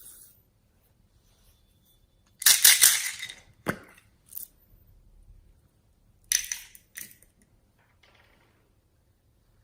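Slime being handled, making two loud bursts of crackling and popping, one after about two and a half seconds and one after about six, with a few short sharp clicks between.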